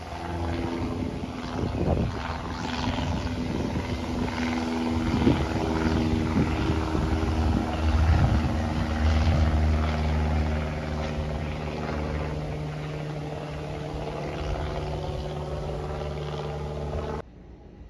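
Single-engine Cessna light aircraft's piston engine and propeller droning steadily as it passes overhead, then cutting off suddenly near the end.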